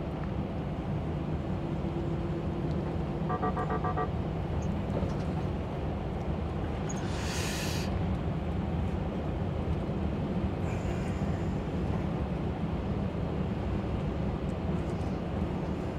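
Steady engine and road noise of a lorry on the move, heard from inside the cab. A short run of rapid electronic beeps sounds about three seconds in, and a brief hiss about seven seconds in.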